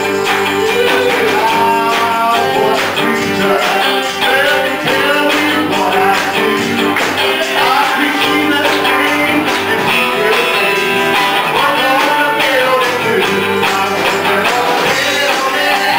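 A man singing a gospel song into a microphone over a live band with electric guitar.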